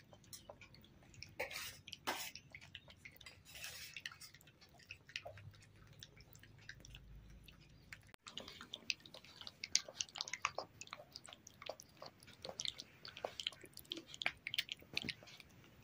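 Golden retriever puppies lapping and chewing a wet, milky mash from steel bowls: a faint run of small wet smacks and clicks that grows busier after about eight seconds.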